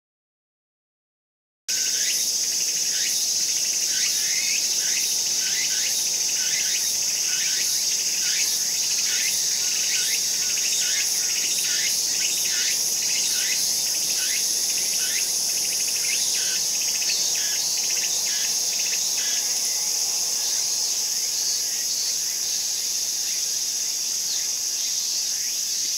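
Silence for the first couple of seconds, then a loud, steady, high-pitched chorus of summer insects, with many short chirps scattered over it.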